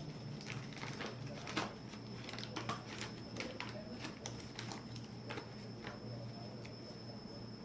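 Scattered light clicks and taps of flour being added with a spoon to a deep plate, over a faint steady high whine.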